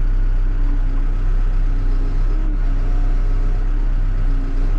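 Backhoe's diesel engine running steadily, with a few faint steady tones coming and going above its low hum.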